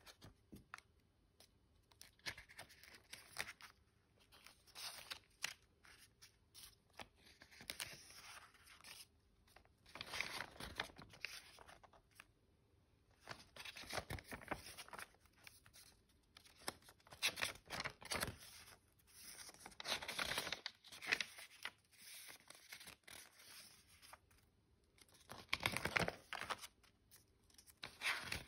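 Sketchbook pages being turned and handled: paper rustling and flapping in repeated bursts a few seconds apart.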